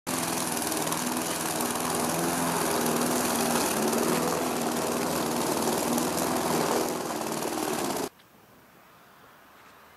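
Hyundai HYM51SP self-propelled rotary lawnmower's 5 hp four-stroke petrol engine running under load while the mower cuts grass. It stops abruptly about eight seconds in, leaving only faint outdoor background.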